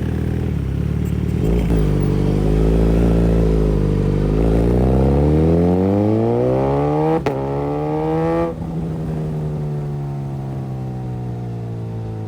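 Suzuki GSX-S1000's inline-four engine pulling hard, its note climbing steadily for several seconds with a sharp click partway through. Then the throttle closes and the pitch drops and falls away as the bike slows.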